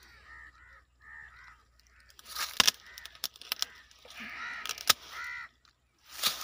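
Crows cawing, about five short calls, with sharp snapping clicks from hand pruning shears cutting a guava branch. The two loudest snaps come about two and a half and five seconds in.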